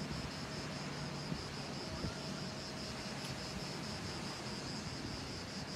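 Insects chirping in an even, rapid pulse, about four pulses a second, over a steady hiss.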